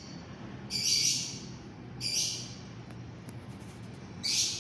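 Lovebird calling: three shrill screeches, the first and longest about a second in, a shorter one near the middle and another near the end.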